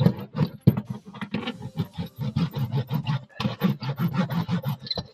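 Butyl sound-deadening sheet being pressed and rolled onto the inside of a car's sheet-metal fender, giving rapid, irregular scraping and rubbing strokes.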